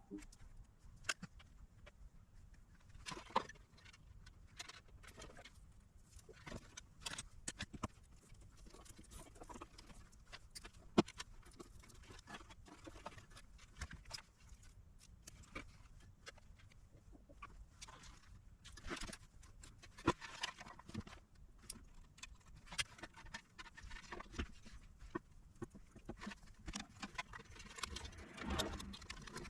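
Scattered light clicks, taps and small knocks of parts and tools being handled on a workbench during electronics repair work, with a few sharper knocks about 3, 11 and 20 seconds in.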